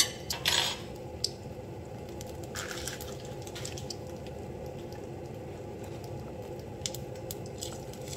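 Egg frying in a pan, the oil spitting in faint scattered ticks over a steady low hum. A few louder clicks and rustles in the first second and a short rustle around three seconds in come from handling the rice-cake bag.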